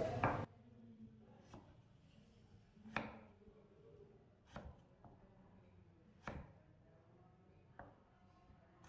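Kitchen knife cutting through a firm white vegetable onto a cutting board: about five separate, unhurried strikes, roughly one every second and a half.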